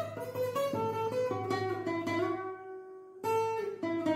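Background music: an acoustic guitar plucking a melody of single ringing notes. It dies away briefly about three seconds in, then starts again.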